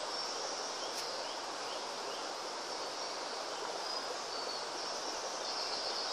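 Steady rush of flowing river water, with a few faint high chirps and one sharp click about a second in.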